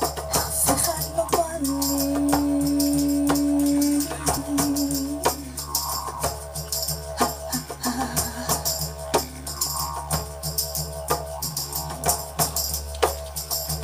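Live band music through a stage PA system, with a steady beat of sharp percussion strikes and a long held note lasting about two and a half seconds near the start.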